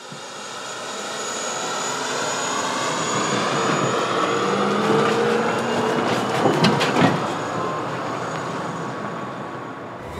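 Mercedes-Benz GenH2 fuel-cell truck driving past close by. There is tyre noise and a whine that climbs slowly in pitch, with a short run of rattling clicks about two-thirds of the way through, then it fades out near the end.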